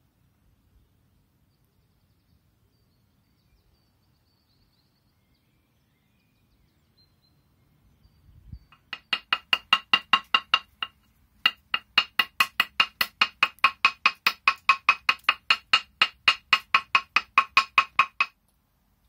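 A hand-held stone striking a limestone slab in quick, even strokes, about four ringing clinks a second. The strokes start about halfway through, break off briefly about two seconds in, then carry on steadily.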